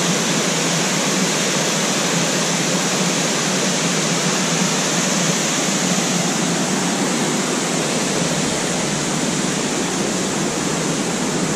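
Steady rush of a stream cascading over boulders in a small waterfall.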